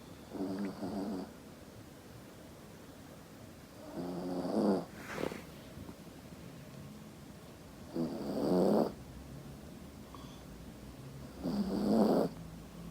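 Yorkshire terrier snoring in its sleep: four loud snores, each about a second long, coming every three to four seconds.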